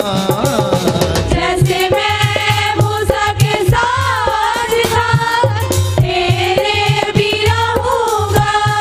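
Hindi Christian worship song music: a wavering melodic lead over a steady drum beat.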